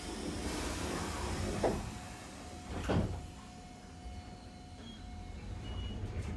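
Randen tram car moving off from a station: a low running rumble with a thin steady motor tone, and two clunks about one and a half and three seconds in.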